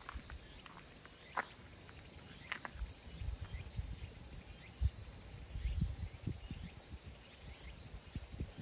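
Outdoor ambience: a steady high hiss, with two short sharp chirps in the first few seconds and irregular low thumps in the middle.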